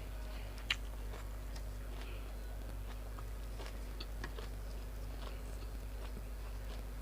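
A person chewing food, with small wet mouth clicks scattered throughout and one sharper click a little under a second in, over a steady low hum.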